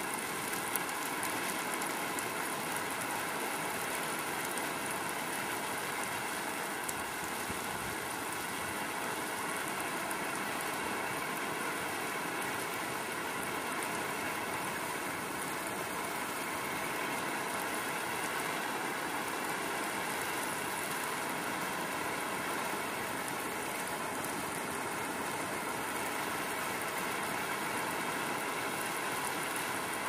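Steady rain, an even hiss that does not let up, with a faint steady hum underneath.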